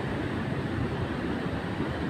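Storm surf breaking and washing up the beach: a steady, unbroken rushing of waves and foam.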